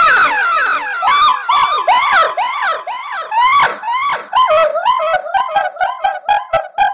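High-pitched squeaky chattering voices without words: rapid rising and falling squeals that come quicker and shorter toward the end.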